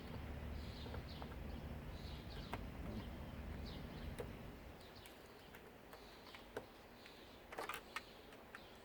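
A small bird chirping repeatedly, short high calls about once a second, over a low steady machinery hum that fades out about halfway. A few light clicks near the end.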